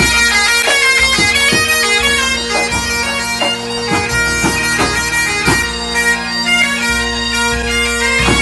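Breton pipe band playing: bagpipes sounding a melody over steady drones, with drums striking at a regular beat.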